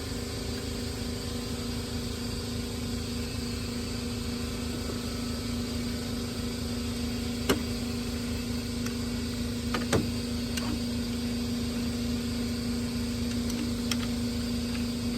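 Impact wrench motor running steadily, without hammering, as it spins a nut down a threaded stud on the engine mount, with a couple of light metal clicks about halfway.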